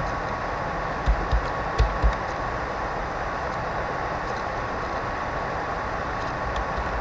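Four quick keystrokes on a computer keyboard, typing a short word, about a second in, heard as dull taps. Under them runs a steady hiss with a thin constant whine.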